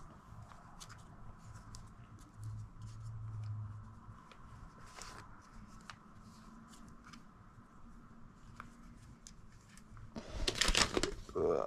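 Small clicks and light scratching from handling objects at close range, with a louder rustling scrape about ten seconds in.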